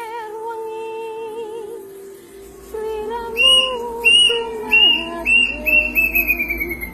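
A bird's whistled call: a run of short high whistles followed by one long falling whistle, over background music with wavering sustained tones.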